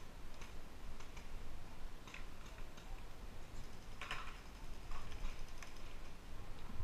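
Scattered sharp pops of paintball markers firing across the field, several a second at irregular intervals, with a stronger one about four seconds in, over a steady low rumble.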